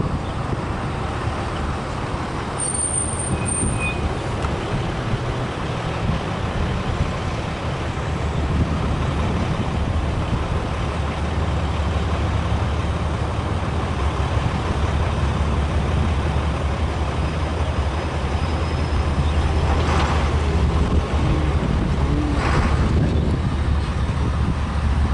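Low, steady engine rumble with outdoor road noise, the rumble growing heavier about halfway through.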